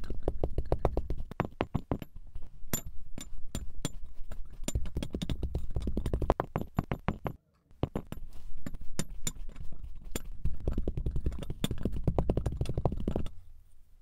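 A wooden tamper pressing and packing kinetic sand in a glass tumbler: a quick run of knocks and thuds, several a second. There is a brief gap about seven seconds in, and the knocking stops shortly before the end.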